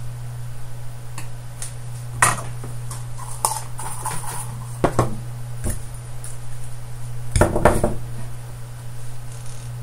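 Light clicks and clinks of a small circuit board and a soldering iron being handled and set down on a workbench: a few separate knocks, with a tighter cluster near the end, over a steady low hum.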